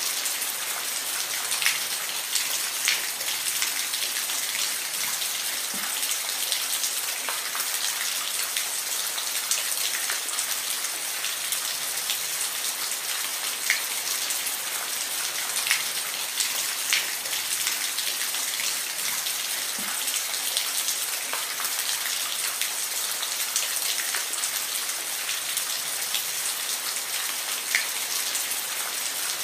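Steady rain falling on a surface: an even hiss with scattered individual drops ticking sharply here and there.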